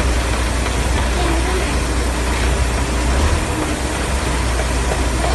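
Diesel engine of a concrete pump truck running steadily under load as it pumps concrete, a constant low hum under a wide noisy wash.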